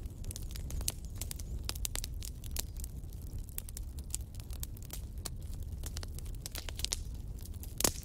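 Fireplace fire crackling: irregular sharp pops and snaps over a steady low rumble, with one louder pop near the end.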